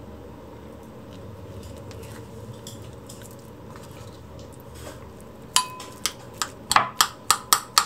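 Metal spoon working avocado flesh in a ceramic bowl: quiet soft scooping at first, then from about five and a half seconds in, sharp repeated clinks of the spoon hitting the bowl as the avocado is mashed, about three or four a second.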